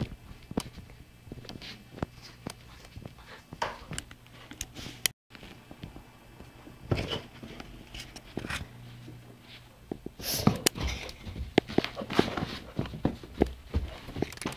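Irregular footsteps, knocks and thumps in a small room as someone runs after a pet, with the rustle and bumping of a handheld phone being jostled. The sound drops out for a moment about five seconds in, and the thumping and rustling grow louder near the end.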